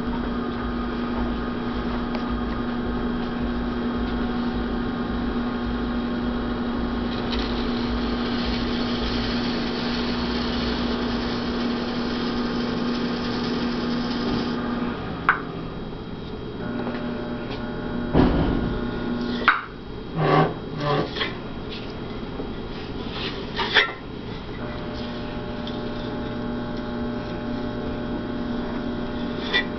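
Electric pottery wheel motor humming steadily while a wooden angle tool scrapes excess clay from the base of the spinning pot. About halfway through the hum breaks off and a few sharp knocks and taps follow. The hum returns near the end.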